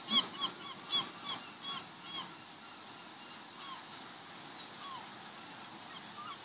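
Gull calling: a quick run of short, arched, nasal calls, about three a second, loudest in the first two seconds, then two fainter single calls, over a steady hiss.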